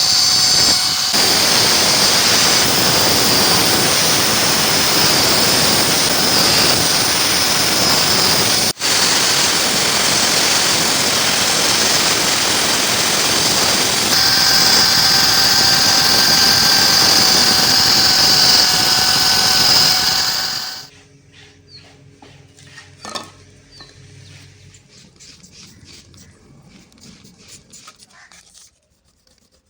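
An electric power tool running steadily at full speed, a loud hiss with a constant high whine, broken for an instant about a third of the way in; it stops about two-thirds through, leaving faint scraping and rubbing with one sharp click.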